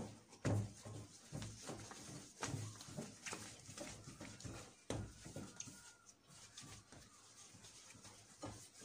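Hands kneading and rounding a ball of bread dough on a floured stainless-steel counter: quiet, irregular thumps and rubbing, about one or two a second.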